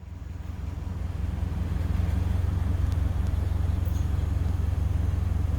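Wind buffeting the microphone: a steady, deep rumble that swells in over the first second and then holds.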